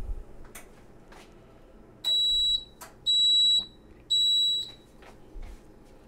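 Toshiba toaster oven's timer beeping three times, each beep about half a second long and about a second apart, signalling that the cook time has run out.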